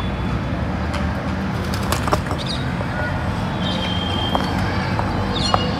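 Outdoor background: a steady low rumble, with short high bird chirps every second or so and a brief whistled tone near the middle.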